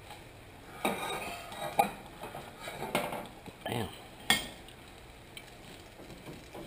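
Frying pan and spatula clattering as an omelette is folded and the pan is worked on a gas-stove grate: about five sharp knocks and scrapes of metal, the loudest about two and four seconds in.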